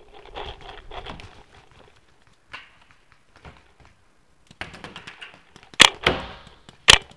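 Paintball-game movement: clothing and gear rustling as the player shifts behind the bunkers, then two loud sharp cracks of close paintball fire about a second apart near the end.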